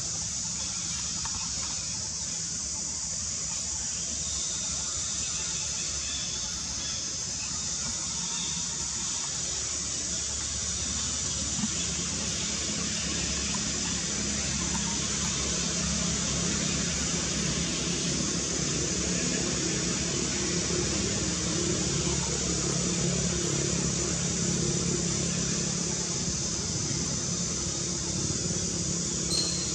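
Steady, high-pitched drone of an insect chorus in the trees, unbroken throughout. A low hum rises underneath about midway.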